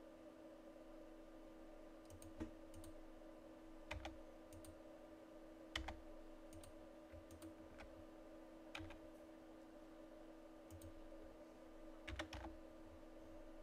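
Faint computer keyboard key presses and mouse clicks, a dozen or so at irregular intervals, over a steady low hum.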